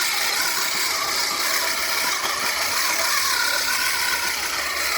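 Manual push reel mower being pushed across grass, its spinning reel blades cutting in a steady, continuous mechanical rattle.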